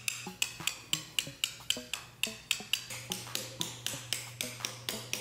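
Small hand hammer striking a hand chisel into marble in steady, even taps, about three sharp strikes a second.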